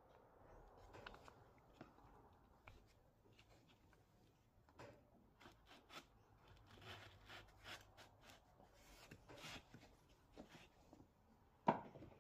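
Faint scrapes, rubs and small taps of an MDF jig board being slid and positioned against a small benchtop disc sander by hand, with one sharper knock near the end.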